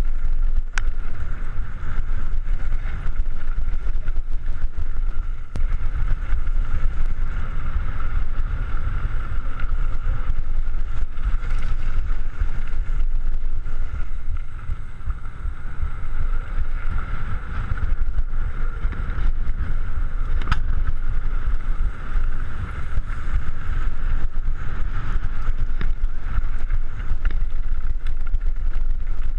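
Wind buffeting the microphone with mountain bike tyres rumbling over a dirt trail on a fast downhill run, with a steady hiss and a few sharp knocks from the bike over bumps.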